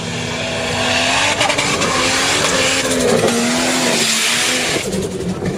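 Toyota Land Cruiser engine pulling hard up a sand dune with a steady, slightly wavering note, over the hiss of sand thrown up by the spinning tyres. The sand hiss drops away about five seconds in.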